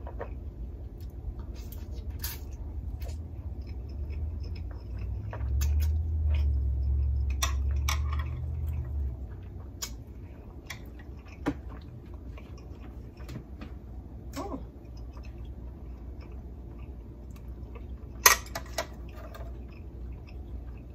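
Close-up eating sounds from a spicy seafood boil: chewing and smacking with scattered short clicks and crackles. A low rumble runs from about four to nine seconds in, and there is one sharp click near the end.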